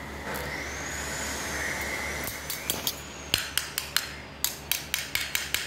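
Sharp fingernail clicks, about a dozen in quick irregular succession over the second half, from lice and nits being cracked between the nails while they are picked from oiled hair. Before them there is a soft hiss with a thin, high, whistle-like tone.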